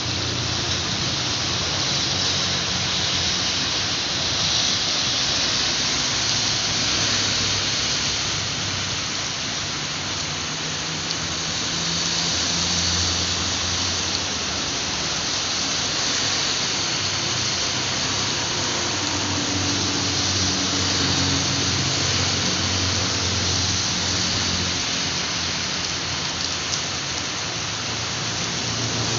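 Steady heavy rain falling on a surface, a continuous dense hiss with a faint low rumble underneath.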